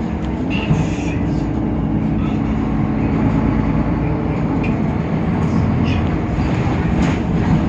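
Temsa Avenue LF city bus running, its DAF PR 228 diesel engine and ZF 6AP Ecolife automatic gearbox giving a steady, loud drone with a low hum, and a few brief clicks and rattles over it.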